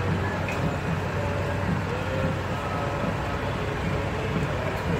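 Steady low engine drone, even throughout, with faint wavering higher tones above it.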